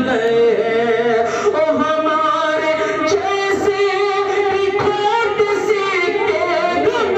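A man singing a devotional song into a microphone, holding long, wavering notes that slide from pitch to pitch.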